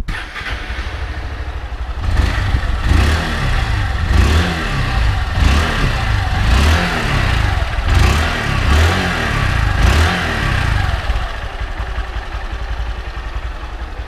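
Honda CG 160 single-cylinder four-stroke engine running through its stock muffler: steady idle, then blipped up and down about eight times, then settling back to idle. It is being revved to listen for a fast valve-train ticking, and the owner hears none and concludes the engine is sound.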